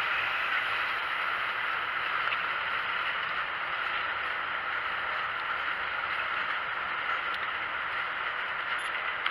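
Train of freight wagons rolling past on the rails: a steady rushing noise without distinct wheel clacks.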